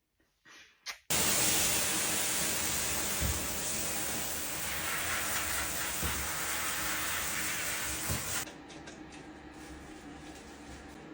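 Water spraying from a shower, a steady hiss that starts suddenly about a second in and drops to a softer flow about eight seconds in.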